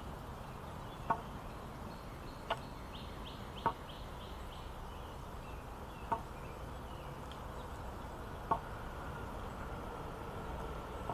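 Wooden walking stick tapping on brick paving as its owner walks: five short sharp knocks at irregular intervals of about one to two and a half seconds, over a steady background hiss.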